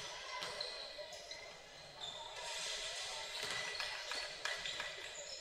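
Basketball game on a gym court: a ball bouncing off the hardwood in a string of sharp thuds, with short sneaker squeaks in between.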